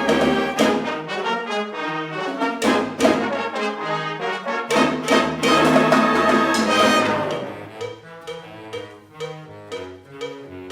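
A high school wind ensemble playing a mambo-style Christmas arrangement: loud full brass chords with sharp accented hits, trombones and trumpets prominent. About seven and a half seconds in, it drops to a quieter, lighter rhythmic passage.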